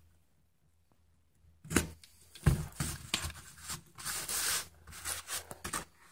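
A paper stencil and a cereal-box cardboard cut-out being handled on a table: two sharp knocks, then paper rustling and sliding across the surface.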